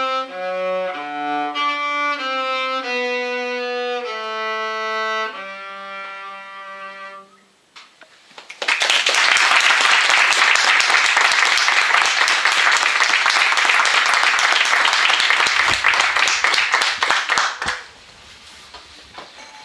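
Cello with Yamaha digital piano playing the closing phrase of a piece, ending on a held note that fades out about seven seconds in. About a second later, applause starts, louder than the music, and lasts about nine seconds before dying away.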